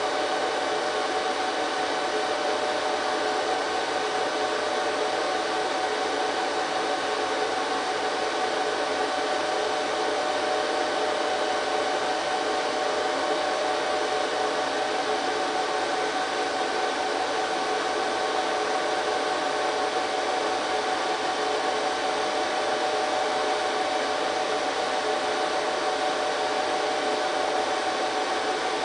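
HP ProLiant DL380 G3 rack server's cooling fans running: a steady whir of moving air with a few high, steady whining tones in it, unchanging throughout.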